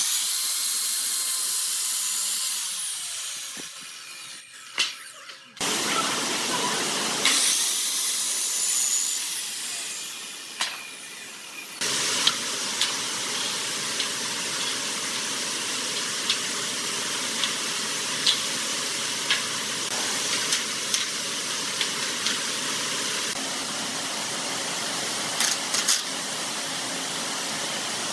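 A sliding miter saw cutting through a pine board, its blade then winding down. A second cut follows about six seconds in. After that, a steady hiss with scattered light clicks and knocks.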